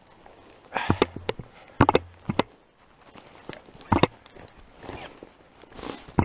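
Footsteps walking over frozen, frost-covered bog grass, with clothing and gear rustling. The steps come in a few uneven clusters of sharp clicks and rustles, a second or two apart.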